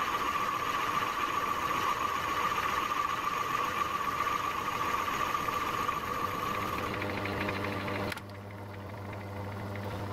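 Myford Tri-Leva lathe running steadily with a high whine while skimming a boss on the mini lathe casting. About eight seconds in the sound drops sharply to a quieter low hum, which cuts off right at the end.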